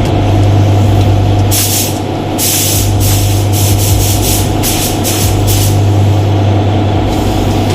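Paint spray gun spraying in a series of short hissing bursts, several in a row over a few seconds, over a steady low hum.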